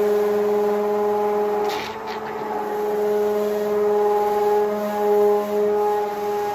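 Hand-held immersion blender running steadily with a whine, blending thick goat milk lotion. Its sound briefly dips about two seconds in, then carries on.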